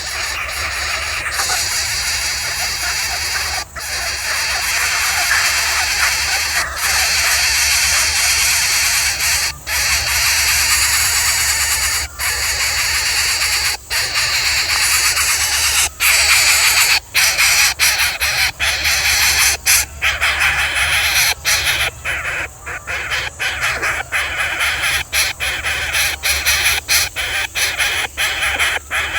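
Loud, harsh bird calling that runs without pause, broken by brief cutouts that come more often in the second half.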